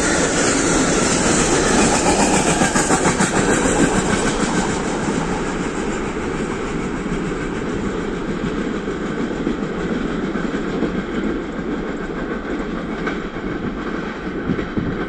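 Freight train of container flat wagons rolling past, wheels clattering over rail joints, then fading steadily as the last wagons draw away.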